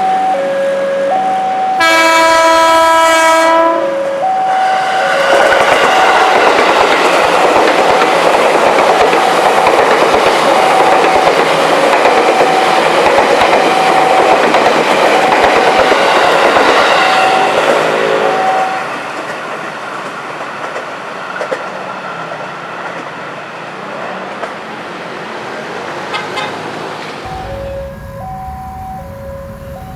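Level-crossing warning alarm sounding in two alternating tones. About two seconds in, an electric commuter train (KRL) sounds its horn for a couple of seconds, then passes with loud rumbling and wheel clatter for about thirteen seconds before fading. The alternating alarm tones return near the end.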